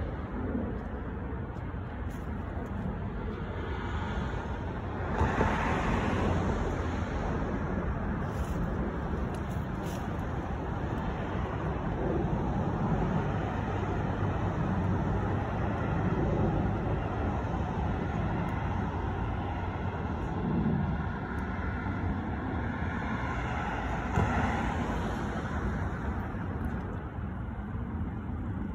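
Steady background road traffic, a low even rumble of passing cars, with a few louder vehicles swelling past and fading now and then.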